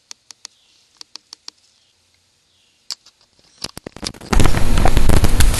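A few scattered sharp ticks, then about four seconds in a sudden, very loud, dense crackling rustle of leaves handled right against the microphone.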